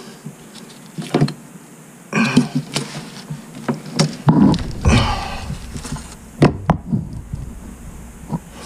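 ABS drain fittings and a torpedo level being handled against the pipe: scattered knocks and clicks, with a few short scrapes as the fitting is worked into position.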